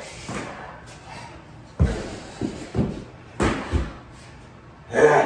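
Heavy thuds and knocks from a man jumping at and dropping from a pull-up bar on a steel power rack: five in about two seconds, then a louder, longer burst of sound just before the end.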